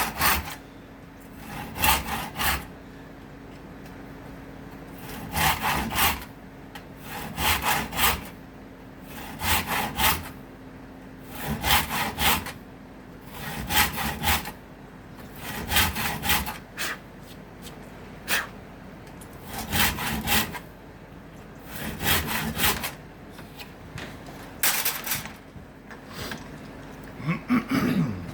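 Hand saw cutting acacia wood in short bursts of back-and-forth strokes, a burst roughly every two seconds. A faint steady hum sits underneath.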